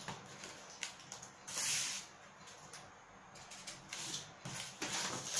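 Corrugated cardboard being handled on a cutting mat: a brief scraping rustle of cardboard sliding about a second and a half in, with light taps and rustles before and after, growing busier near the end.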